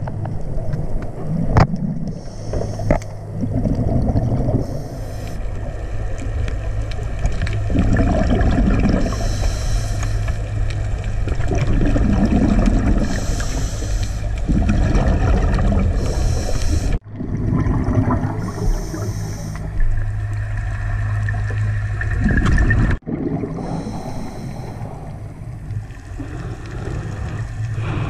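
Underwater sound heard through a GoPro housing: a scuba diver's regulator breathing, with a hiss recurring every few seconds, over a steady muffled rumble and low hum.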